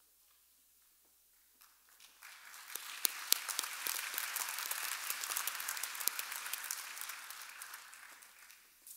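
Audience applauding. The clapping starts about two seconds in, swells, then thins out and dies away near the end.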